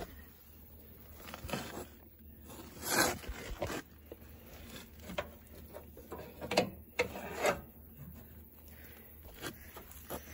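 Intermittent rubbing and scraping with scattered clicks, the sound of mechanical parts being moved and worked by hand. The loudest is a scrape about three seconds in, with a cluster of sharper scrapes later.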